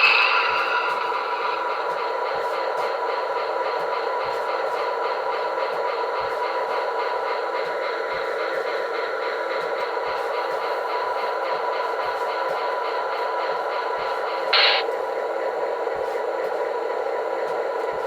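Sampled diesel locomotive engine sound from a QSI Maxx Traxx model-train sound unit, running steadily. A horn blast ends just as it begins, and a short brighter burst comes near the end.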